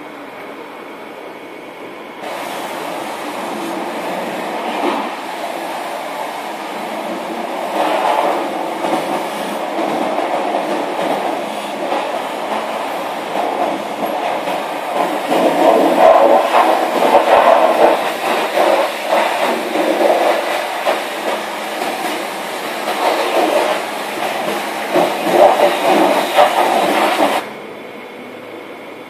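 High-pressure washer lance spraying water onto a car's bodywork and wheels, a dense hiss that rises and falls in level. It starts sharply about two seconds in and cuts off suddenly near the end as the trigger is opened and released.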